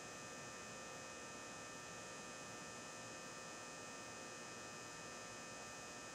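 Faint, steady electrical hum with hiss: room tone, with no distinct handling or tool sounds.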